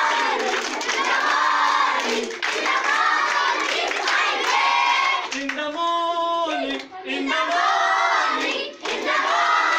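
A group of schoolgirls singing together in unison while clapping along. About halfway through, a single voice carries a held line alone for about a second before the group comes back in.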